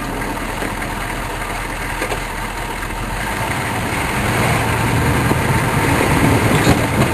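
Chevrolet K5 Blazer's 6.2-litre diesel engine running while plowing snow, getting somewhat louder over the second half.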